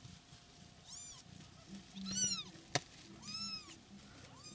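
Young kittens mewing: four short, high-pitched meows, each rising and falling in pitch, about one a second. A single sharp click sounds between the second and third meow.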